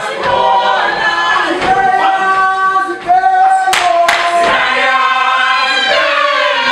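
A group of young South African men and women singing together unaccompanied, in several held voices, as they dance. Two sharp hits cut through the singing about four seconds in.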